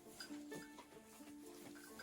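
Quiet background music: held notes with light plucked notes over them.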